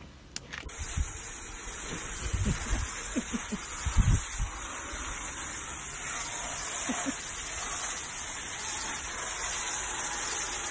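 Steady hiss of water spraying from a garden hose onto an alpaca and muddy ground, starting under a second in. A few low thumps come through in the first seconds of the spray, the loudest about four seconds in.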